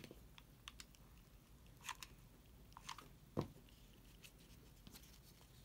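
Near silence with a few faint crinkles as faux leather bow pieces are handled and pressed together, and one soft knock about three and a half seconds in.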